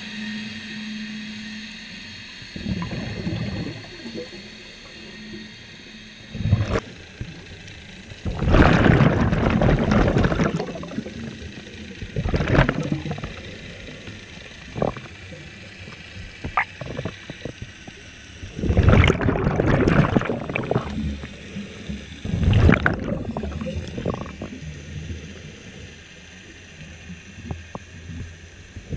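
Scuba diver breathing through a regulator underwater: loud bubbling exhalations every few seconds, the longest lasting about two seconds. Background music fades out over the first several seconds.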